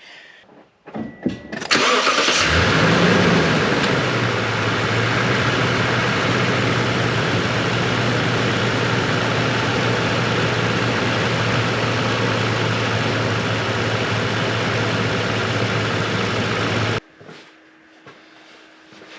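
Toyota Tundra engine freshly refilled with oil is cranked briefly by the starter and catches just before two seconds in. It flares up for a moment, then settles into a steady idle. About seventeen seconds in it is shut off and stops abruptly.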